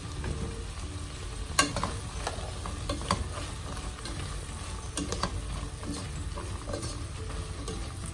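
Green beans and carrot pieces being stirred in a non-stick pot over a low, steady sizzle, with the spatula now and then clicking and scraping against the pan.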